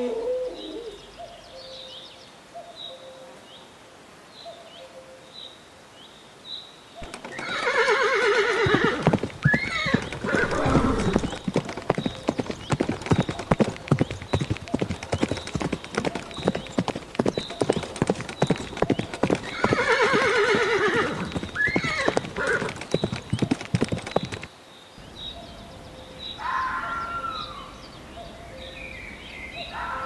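Horses whinnying twice, about twelve seconds apart, over a fast, steady clatter of hooves that starts a few seconds in and stops abruptly near the end. Faint bird chirps can be heard before and after.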